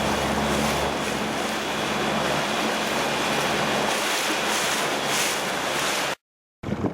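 Steady rushing noise of wind and water with a low, steady hum from a large ship's engines underneath. The sound cuts out abruptly for about half a second near the end.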